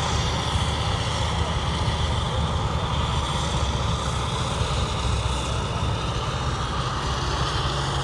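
CLAAS self-propelled forage harvester running under load as it chopping silage corn and blowing it into a truck alongside: a steady, dense machine drone with no pauses.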